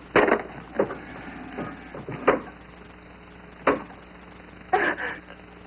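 Five sharp knocks or clunks at irregular intervals, over a faint steady hum.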